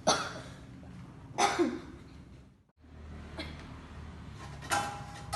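A woman coughing hard on purpose after a deep breath, the effective-cough technique for clearing sputum; two strong coughs about a second and a half apart, and another short burst near the end.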